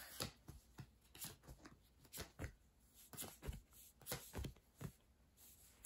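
Tarot cards being drawn from the deck and laid down on a cloth-covered table: faint, irregular taps and slides of card on card and card on fabric.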